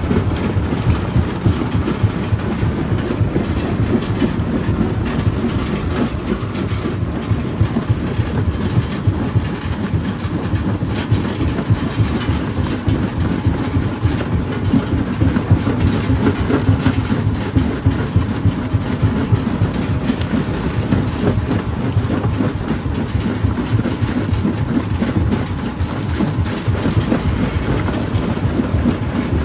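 Jaw crusher crushing stone: a steady low rumble with a dense, rapid clatter of rocks knocking and breaking between the jaws.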